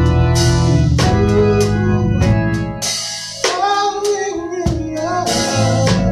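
Live gospel church music: sustained organ chords over a drum kit keeping a steady beat.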